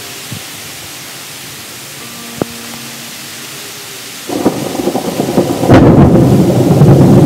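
Steady rain hiss, then about four seconds in a thunderclap breaks in: a sharp crack a second or so later and a loud, rolling rumble that carries on.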